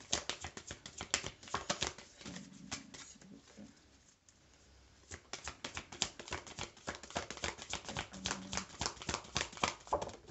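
A deck of oracle cards being shuffled overhand in the hands: a fast run of small card clicks and slaps for about two seconds, a pause of about three seconds, then the shuffling starts again about five seconds in.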